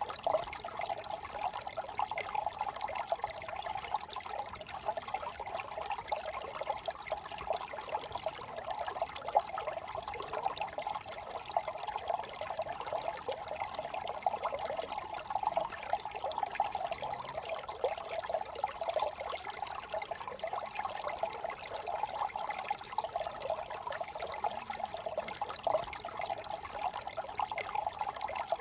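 Small brook trickling steadily, an even, rippling water sound without pauses.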